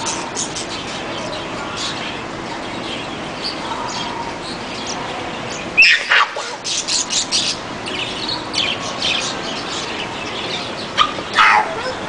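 Small pet-store cage birds, finches and budgerigars, chirping and tweeting in many quick short notes over steady background noise. Two louder high calls slide downward, about six seconds in and again near the end.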